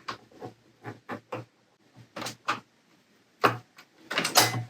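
Scattered small clicks and knocks of plastic parts being handled and worked loose inside a Cricut Maker cutting machine as it is taken apart. The knocks come irregularly, with a few louder ones about two seconds in and near the end.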